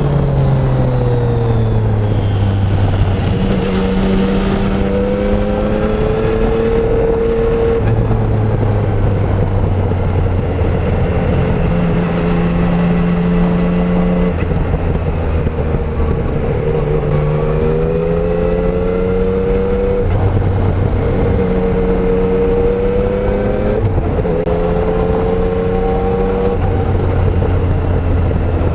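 Yamaha Tracer 900's 847 cc three-cylinder engine on the stock exhaust, heard on board while riding. The engine note climbs and falls repeatedly with throttle and gear changes, stepping to a new pitch every few seconds, over a steady rush of wind noise.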